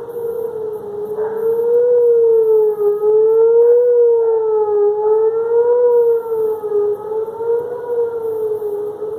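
A continuous, siren-like wail of unidentified origin, its pitch wavering slightly up and down about every two seconds and swelling louder in the middle before easing off.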